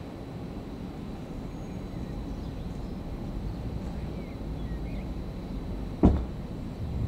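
Railway station ambience: a steady low rumble from trains, growing slightly louder, with a single loud thump about six seconds in.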